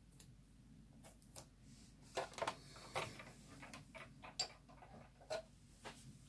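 Irregular light clicks and knocks of craft equipment being handled and set down on a table, a few sharper knocks between about two and five and a half seconds in.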